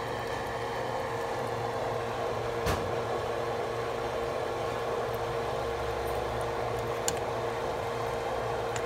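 A kitchen fan running with a steady whir and a constant hum, with two light taps of a ladle against the pot, about three and seven seconds in.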